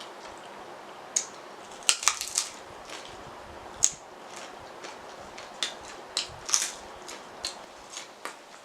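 Close-miked eating sounds: food being crunched and chewed, with irregular sharp mouth clicks and smacks.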